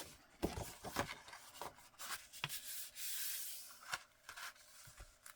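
Paper and card being handled on a table: light rustling and rubbing with small taps, and one longer sliding rub about three seconds in.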